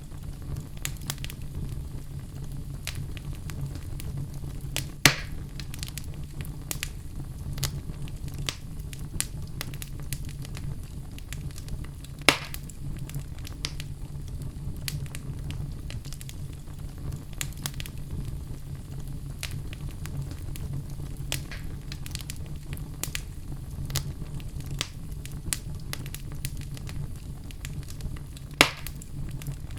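Wood fire burning in a fireplace: a steady low rumble of flames with constant small crackles, and three loud sharp pops from the burning wood, about five seconds in, about twelve seconds in and near the end.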